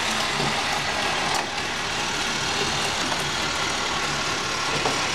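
Battery-powered toy train's small motor running steadily as it pulls its cars around a plastic track, with one click about a second and a half in.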